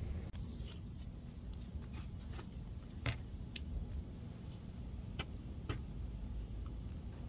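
Steady low rumble with scattered short, light clicks and ticks, the loudest about three seconds in.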